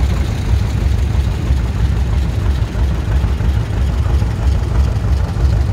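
Vintage John Deere two-cylinder tractor engine running at low speed as it drives past, its exhaust a steady, rapid low pulsing, with other tractor engines running behind it.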